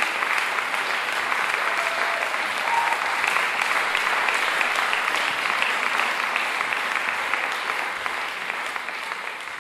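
Audience applauding, dense steady clapping that starts to fade near the end.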